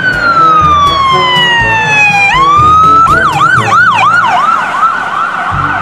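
Police-car siren: one long wail falling slowly in pitch, a quick rise about two seconds in, then a fast yelp whose up-and-down sweeps speed up. It plays over background music.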